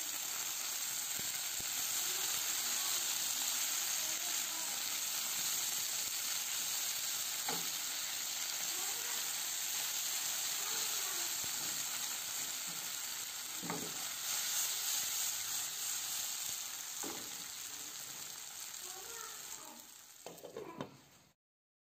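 Zucchini cubes sizzling in hot oil in a nonstick frying pan while a silicone spatula stirs them, with a few light knocks. The sizzling fades near the end and cuts off abruptly.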